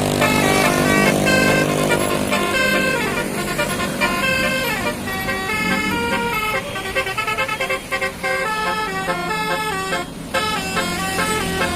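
A bus's musical 'telolet' (basuri) air horn playing a tune: a quick run of held horn notes stepping up and down in pitch, with a falling slide about four to five seconds in.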